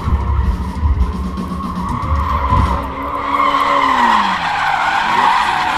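Ford drift car sliding sideways with its tyres screeching and its engine running hard. The screech is loudest in the second half, while the engine note falls.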